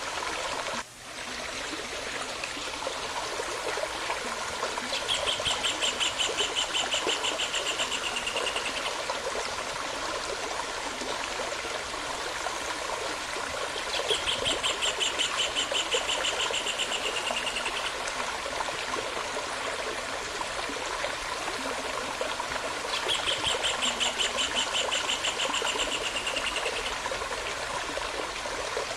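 Steady running water of a stream, with a songbird repeating a fast trill three times, each about four seconds long and dropping slightly in pitch at the end. The sound briefly dips about a second in.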